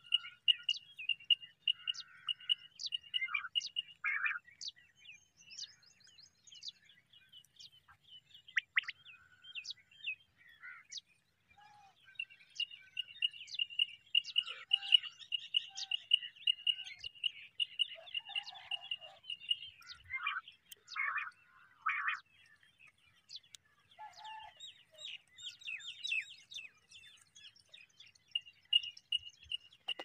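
Birds chirping and calling: many short, sharp chirps, with a few lower calls, three of them in a row near two-thirds of the way in. A steady high-pitched trill runs underneath, stopping and starting.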